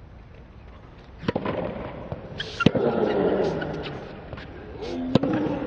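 Tennis rally slowed to half speed, an octave lower: three sharp racket-on-ball strikes, the last two about two and a half seconds apart. After the later strikes come a player's grunts, stretched into deep, falling groans.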